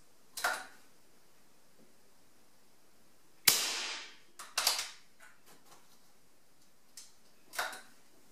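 A PCP air rifle fires once about three and a half seconds in, a sharp crack and the loudest sound here, with softer clacks from handling the rifle shortly before and after.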